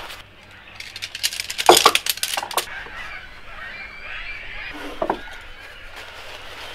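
A quick run of sharp metallic clicks and clinks from lightweight tent poles being fitted together as a small tent is pitched, followed by a single short knock about five seconds in.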